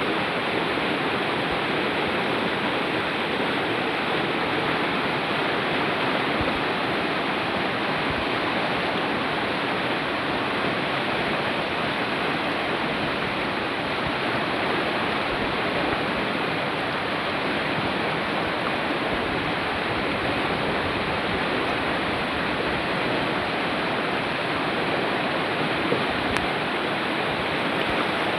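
Mountain river or stream rushing steadily over rocks, a continuous even roar of flowing water.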